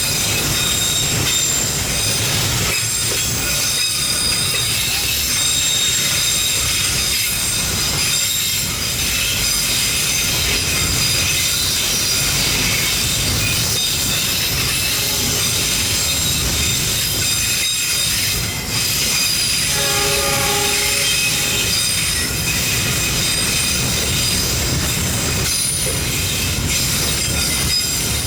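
Long train running past on Indonesian railway track: continuous wheel-on-rail rumble with high-pitched ringing squeal from the wheels. A short horn blast sounds about 20 seconds in.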